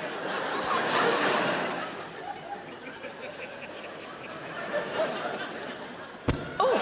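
Audience laughing, fullest in the first two seconds, then dying away to scattered chuckles. A sharp click comes near the end.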